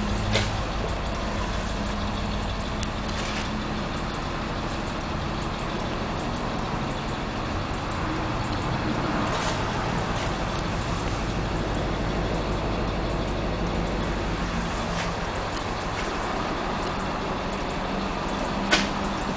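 School bus's rear-mounted International T444E 7.3-litre turbo diesel idling steadily, heard from inside the passenger cabin as a low hum under a steady hiss. A sharp click comes near the end.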